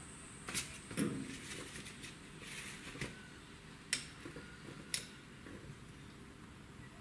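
Faint handling of small steel measuring tools, a digital caliper and a telescoping bore gauge: about five sharp clicks and taps spread out, with light rustling of hands on paper.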